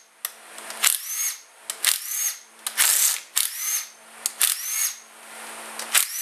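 Cordless drill/driver with a socket extension spinning out bolts on a KTM four-stroke engine's cylinder head. It runs in short bursts about once a second, each starting with a rising motor whine.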